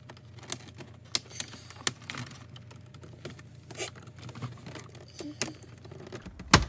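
Plastic trim pry tool clicking and scraping against a dash trim panel as it is worked in to pop the panel's snap clips, in scattered sharp clicks with one louder snap near the end.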